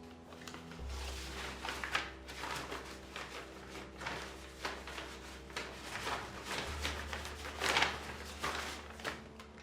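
Low sustained background music under a run of irregular rustling and knocking handling sounds, several a second, in a small room.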